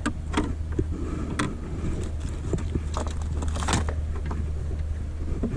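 Scattered light clicks and rattles as a fishing hook and landing net are worked free of a catfish, over a steady low rumble.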